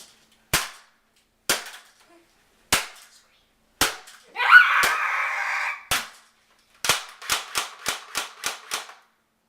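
Airsoft guns firing: single sharp shots about once a second, then a quick string of about eight shots, roughly four a second, near the end. In the middle, a loud burst of noise about a second and a half long.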